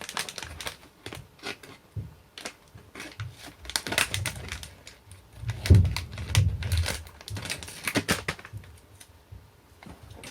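Irregular clicking and crinkling of a toy blind-bag package being handled and torn open, with a few dull thumps about two-thirds of the way through.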